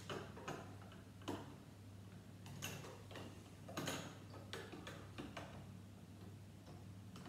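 Faint, irregular clicks and clatters of plastic Lego bricks being handled and pressed together, a few ticks a second at the busiest, over a steady low hum.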